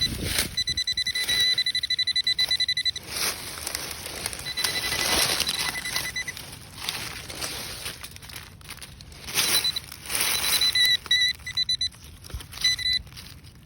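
Metal detector sounding a high, rapidly pulsing tone that starts and stops several times as it is swept over a target, with noisy rustling and scraping bursts in between.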